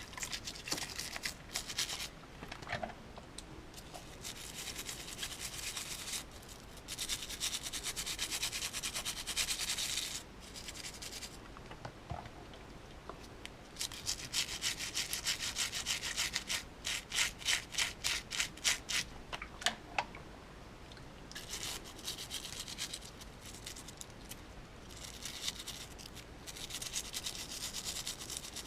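Toothbrush bristles scrubbing dirt off the plastic parts of a disassembled TV remote control, in bouts of quick back-and-forth strokes with short pauses between them.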